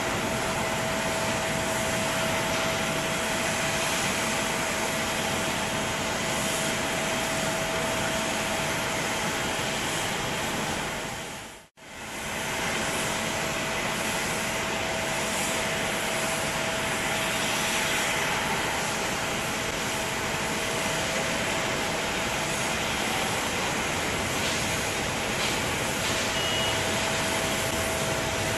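Distant Boeing 747-8's four GEnx jet engines running at low power as the airliner taxis and lines up: a steady rushing hum with a constant whine. It fades briefly to silence about twelve seconds in and returns unchanged.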